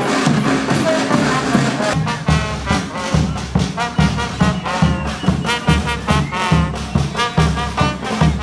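Street brass band music: horns play a melody over a steady bass drum beat of about two strokes a second.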